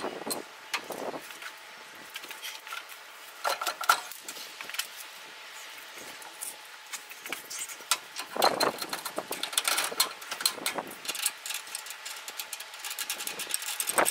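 Metal clinks, knocks and scraping from hand work on a pickup truck's rear suspension, fitting bolts and links at the axle. The sounds come in several bursts with quieter gaps between them.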